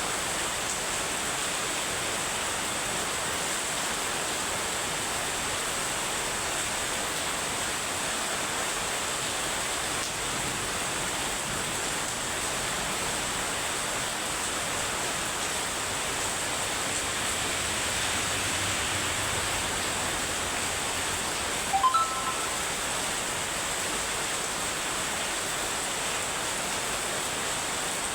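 Heavy rain pouring in a steady, even hiss. About three-quarters of the way through comes one brief chirp of three short notes stepping upward in pitch.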